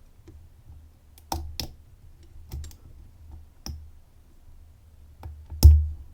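Small metallic clicks of a dimple pick and tension tool working the pins of a 10-pin Domus dimple Euro cylinder, probing the pins one at a time. About half a dozen sharp separate clicks, the loudest near the end.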